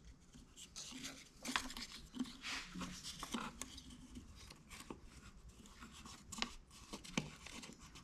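Faint handling sounds of FrogTape painter's tape being pulled, torn and pressed down, scattered small clicks and short rustles.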